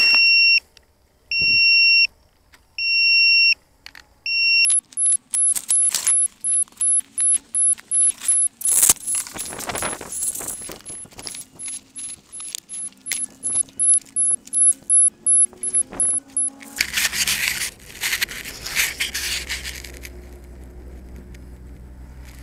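Electronic beeps: four evenly spaced beeps, each a bit under a second long, then a fast run of short, very high-pitched beeps, about two or three a second, with clicks and rattling among them. The beeps stop about three-quarters of the way in, and a short burst of noise follows.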